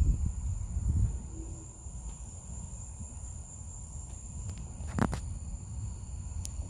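Crickets trilling steadily in the dark, a continuous high-pitched tone, over a low uneven rumble. A single sharp knock comes about five seconds in.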